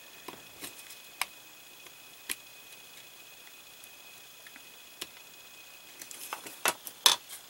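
Small scattered clicks of a precision screwdriver working a tiny screw into a black plastic model panel, with a quicker run of louder clicks and knocks near the end as the part and tool are handled.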